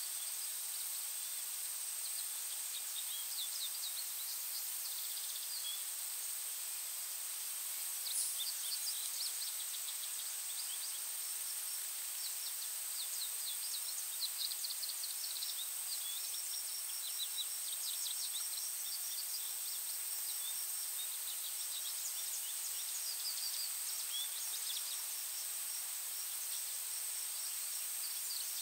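Forest ambience: small songbirds giving short rapid trills and chirps every few seconds over a steady high-pitched tone and a soft background hiss.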